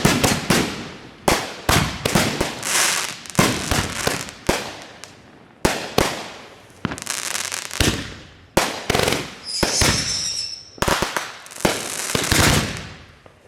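Fireworks going off in quick succession: sharp bangs every half second or so, each trailing off in a crackling hiss, with a steady high whistle for about a second near ten seconds in.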